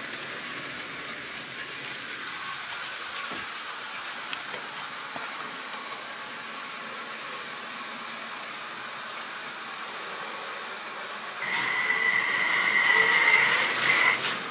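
Model railway train running on the track, a steady rolling hiss of its wheels. Near the end a louder, high steady whine of the locomotive's electric motor comes in and grows as the train draws close.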